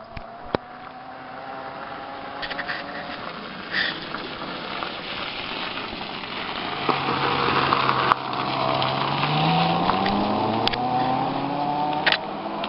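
Electric moped's motor whining as it rides past, the whine rising in pitch as it speeds up in the second half, over tyre noise on gravel.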